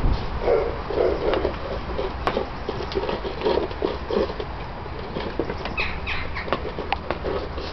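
A litter of six-week-old Bernese mountain dog puppies eating from bowls: busy, irregular eating and jostling noises with small clicks. A few brief high puppy squeaks come about six seconds in.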